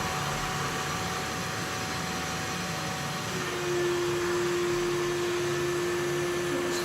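Samsung VR20M7070WD robot vacuum running: a steady whir with a faint hum that drops to a lower pitch about three seconds in, getting slightly louder.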